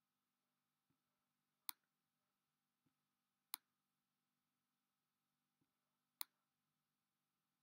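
Near silence broken by three sharp computer-mouse button clicks about two seconds apart, each preceded by a fainter click, as a word is handwritten on screen with the mouse. A faint steady hum lies underneath.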